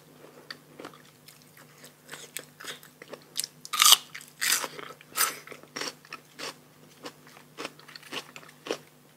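Close-miked mouth sounds of a person eating: irregular chewing with sharp crunchy bites, the loudest about four seconds in.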